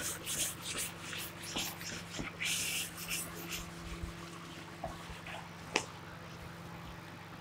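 Whiteboard eraser wiping across the board in a few short brushing strokes, the loudest about two and a half seconds in. A single sharp click comes near the end.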